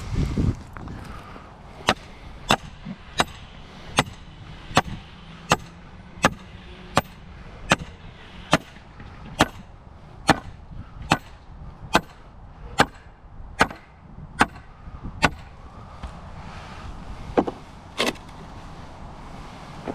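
Hammer blows on metal in a steady rhythm, about four strikes every three seconds, each with a faint ring, stopping after about thirteen seconds; two more single knocks follow near the end, the second louder.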